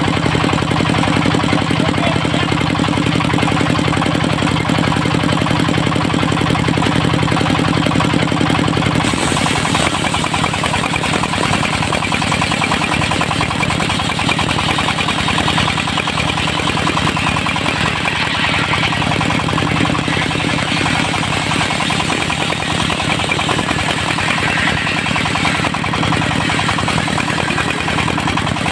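The engine of a portable circular sawmill running steadily. About nine seconds in, its sound changes: the low steady hum weakens and a rougher, hissier sound takes over.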